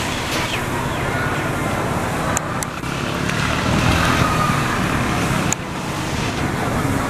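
Street traffic: road vehicles passing steadily, with a few sharp clicks about two and a half and five and a half seconds in.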